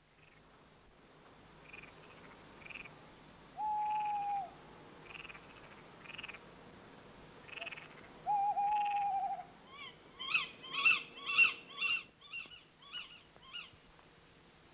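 Night-time countryside sound effects. An owl gives two long, even hoots, about four and eight seconds in, over faint steady insect-like chirping. From about ten seconds in comes a quick series of sharp chirping calls, the loudest part.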